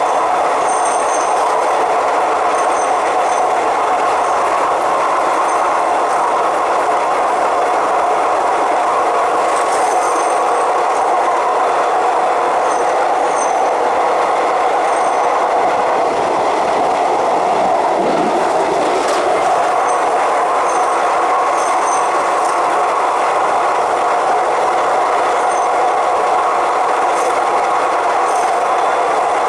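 Electric suburban train running at speed on elevated track: a steady running noise with a constant whine underneath and faint scattered high ticks. About two-thirds of the way through, a tone briefly swoops down and back up.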